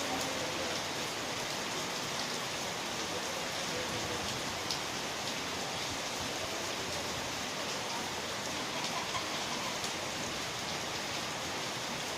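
Steady rain falling, an even hiss, with a few sharper drop hits now and then.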